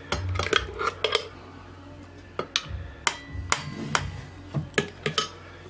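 A metal spoon scraping and knocking against a glass blender jug and a stainless steel funnel while thick liver pâté is scooped out: a dozen or so scattered clinks and scrapes.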